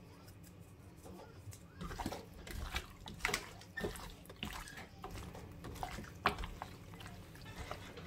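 Raw chicken wingettes being tossed and rubbed by a gloved hand in a bowl: irregular wet squelches and slaps, starting about two seconds in.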